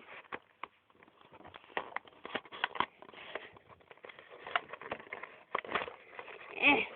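Cardboard jigsaw puzzle box being handled and opened at the side: irregular small crackles, taps and scrapes.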